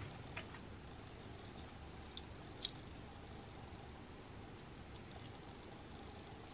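Quiet room tone with a few faint, light clicks of a small metal car keyring being handled, the two clearest about two to two and a half seconds in.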